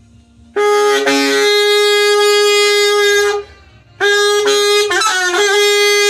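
Alto saxophone playing two long held notes, with a short break between them. The second note dips and bends in pitch partway through before settling back.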